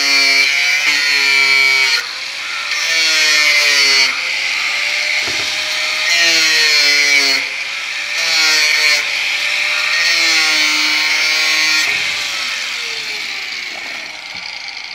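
Electric angle grinder cutting through a PVC pipe. The motor whine dips in pitch and recovers as the disc bites, with a harsh cutting hiss and a few brief pauses, then winds down near the end.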